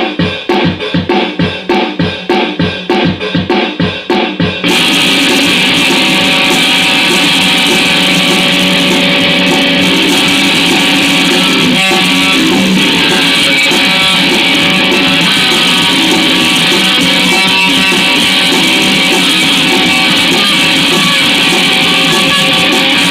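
Instrumental song intro: a guitar riff of repeated picked notes, about two or three a second, then about five seconds in the full band comes in with drums and electric guitar and plays on steadily.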